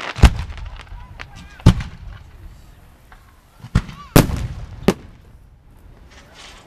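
Aerial fireworks shells bursting overhead: five sharp booms, two of them close together about four seconds in, the loudest trailing off in echo.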